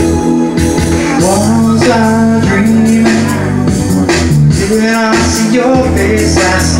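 Live rock song: a man singing over electric guitar, bass and a steady beat.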